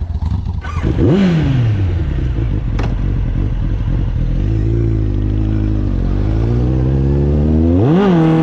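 Kawasaki Ninja sport motorcycle engine revved sharply about a second in, then pulling away in a low gear, its pitch climbing gradually and rising sharply again near the end.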